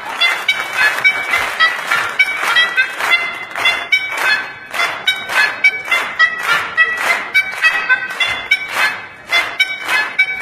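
A classical melody played on a set of car horns: a quick run of short, separate honked notes, several a second.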